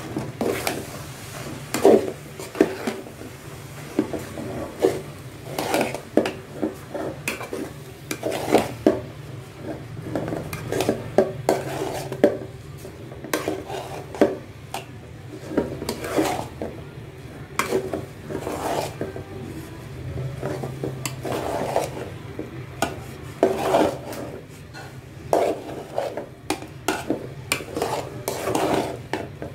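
Metal spoon stirring grated coconut into date-palm jaggery syrup in a metal pot, scraping and clanking against the pot's sides and bottom in irregular strokes, about one or two a second, over a steady low hum.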